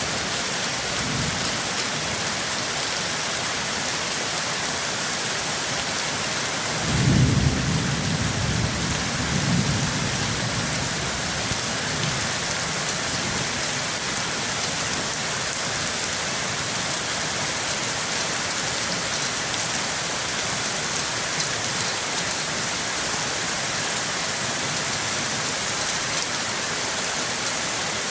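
Steady heavy rain falling, with a low roll of thunder about seven seconds in that rumbles and fades over a few seconds.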